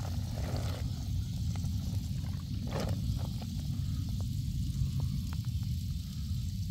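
A wet cloth being squeezed and kneaded by hand in a basin of foamy loess dye water, giving scattered small squelches and one brief splash about three seconds in, over a steady low rumble.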